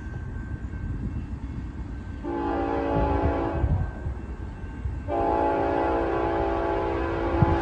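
Norfolk Southern locomotive's air horn sounding as the train approaches: one blast of about a second and a half, then a second, longer blast beginning about five seconds in, over a low rumble.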